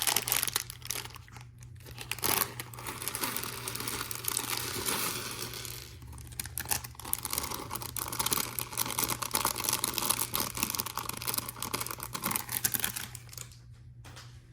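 LEGO parts bags being torn open and crinkled by hand, a dense crackling rustle with brief pauses that dies away near the end.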